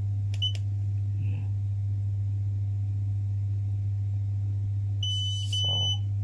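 Xiaomi M365 electric scooter dashboard beeping. There is a short high beep as the power button is pressed, then two long beeps near the end: the start of the two-long, one-short error 21 pattern that signals a battery communication fault. A steady low hum runs underneath.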